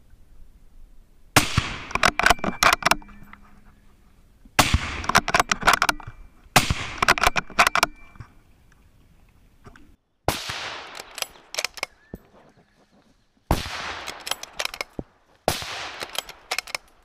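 Six rifle shots from a custom .308 Winchester bolt-action rifle, fired about two to three seconds apart with the bolt worked between them. Each shot is loud and sudden and is followed by a long rolling tail.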